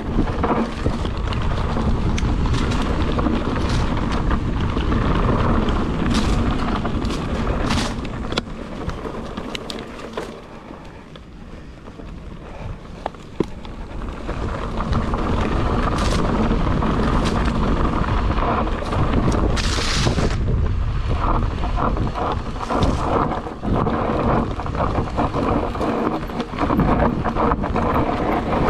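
Wind buffeting a handlebar-mounted action camera's microphone and a mountain bike's tyres rolling over dirt and loose stones on a downhill trail, with frequent knocks and rattles from the bike over bumps. It quietens for a few seconds about ten seconds in.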